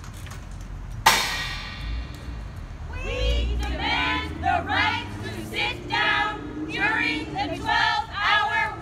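A sharp bang about a second in, then a group of voices singing in short, repeated high phrases from about three seconds on.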